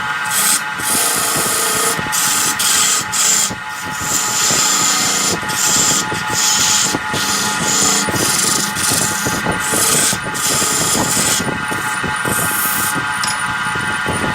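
Wood lathe running with a steady motor whine while a turning tool cuts the spinning wood, bursts of scraping hiss coming and going every second or so.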